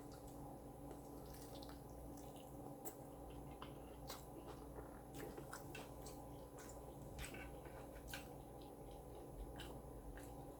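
Faint mouth sounds of a person chewing a taco close to the microphone: scattered soft clicks and wet squishes, over a steady low hum.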